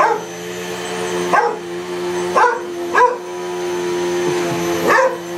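A dog barking about five times in short, loud barks at a running upright vacuum cleaner, whose motor hums steadily underneath.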